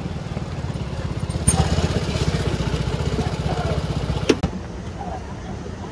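A Vespa scooter's small engine running as it rides up close, its steady pulse growing louder about a second and a half in. A sharp click comes near the end, after which the sound drops.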